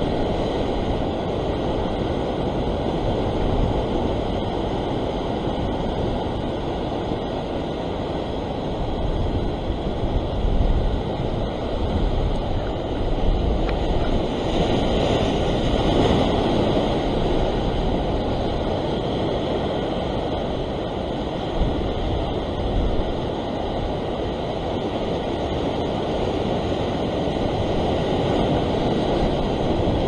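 Ocean surf breaking and washing over a rock ledge: a steady rush of white water that swells louder in surges about a third and about half of the way through, with wind buffeting the microphone.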